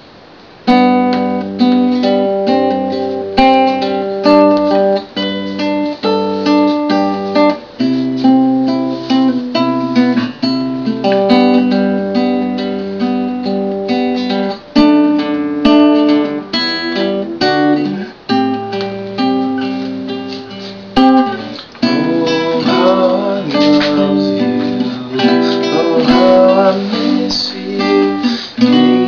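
Nylon-string cutaway classical guitar played fingerstyle, plucked notes and chords ringing, starting about a second in.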